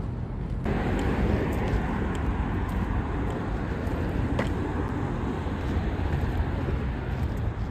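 Steady city street traffic noise, a continuous rumble of passing cars, growing louder about a second in.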